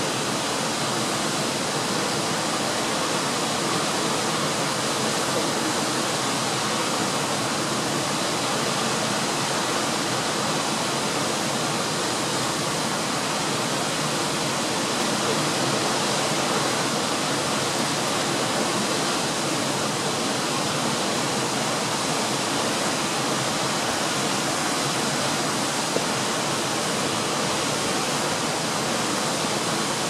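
Siklawa waterfall, a tall mountain cascade, pouring down a rock face with a steady, even rush of water.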